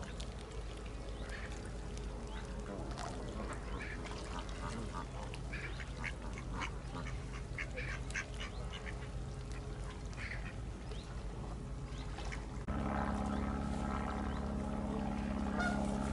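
Ducks quacking in short calls. A little before the end the sound jumps louder to a steady low hum.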